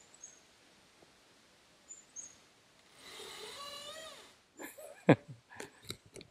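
Swaying oak trees creaking in the breeze: a long, wavering creak with several overtones about halfway in, after a near-quiet stretch with a few faint high chirps. A run of sharp knocks and clicks follows near the end.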